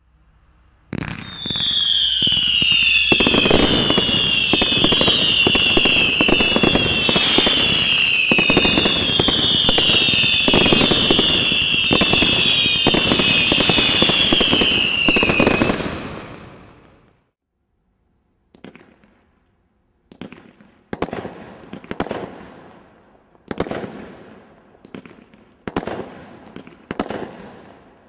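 Fireworks from a Brothers Grand Slam Cat 3 display kit firing. For about fifteen seconds there is a dense, continuous crackle under a shrill whistle that keeps dipping in pitch, cutting off fairly suddenly. After a short pause comes a run of about ten separate sharp bangs, roughly one a second.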